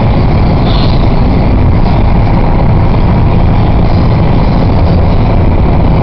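Loud, steady road and engine noise heard from inside the cabin of a moving vehicle, a low rumble that stays even throughout.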